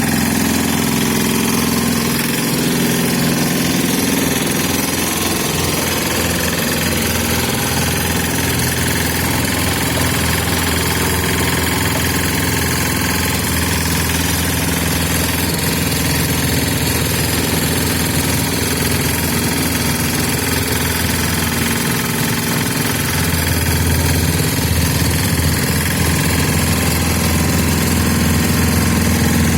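Engine of an FVR850D vibrating road roller running steadily. Its low drone drops back about two seconds in and swells again a little after twenty seconds.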